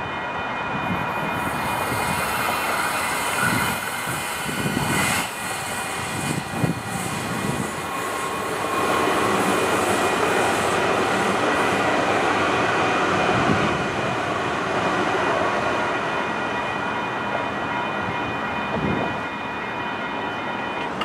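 WCH Type 4 electronic crossing bells ringing steadily while two light-rail trains pass in opposite directions, their wheels and motors rumbling. The bells stop near the end.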